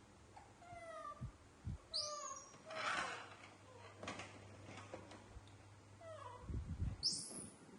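Young animals crying: a series of short, falling squeaks and two shrill, high-pitched cries, one about two seconds in and one near the end.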